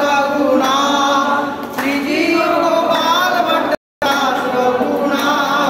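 Group devotional singing (kirtan) by men and women together, held wavering notes with hands clapping along. The sound drops out for a moment just before four seconds in.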